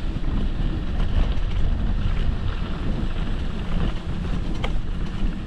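Wind buffeting a handlebar-mounted action camera's microphone over the rumble of an electric scooter riding across ruts and dips, with one sharp knock a little past four and a half seconds in.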